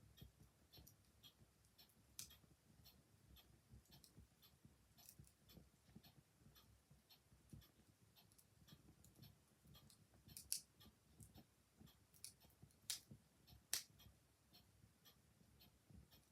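Wood fire crackling quietly, with a few sharper pops, over the steady ticking of a clock.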